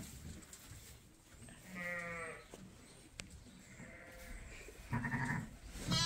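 Sheep bleating: a high-pitched bleat about two seconds in, a fainter one a little after four seconds, and a lower, louder bleat near the end.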